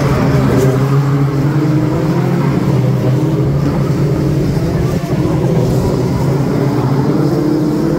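BriSCA F2 stock cars racing past close by, several engines running hard at once in a loud, steady, overlapping drone.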